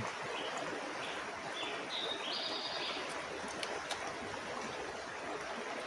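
A river running steadily, with several short, high bird calls in the first three seconds.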